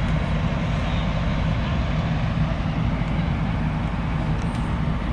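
Steady low diesel rumble from heavy road-planing plant and waiting tipper lorries, running without a break or change.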